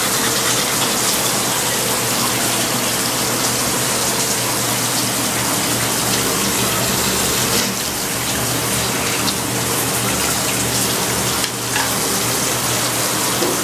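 Water running steadily from a bathroom tap, dipping briefly twice in the second half.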